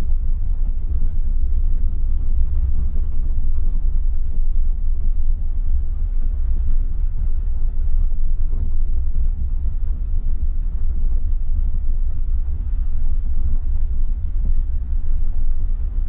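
Jeep driving slowly on a rough dirt trail: a steady, loud low rumble of engine and tyres.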